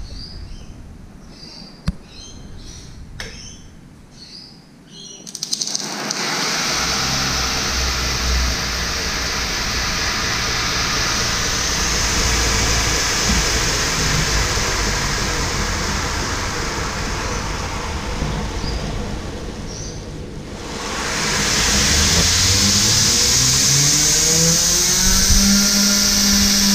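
Homemade 2x72 belt grinder driven by a 2.5 hp DC treadmill motor starts about five seconds in and runs with a steady whir of belt and motor. About twenty seconds in it drops back, then whines up in pitch over a few seconds as the speed is turned up, running faster and louder to the end.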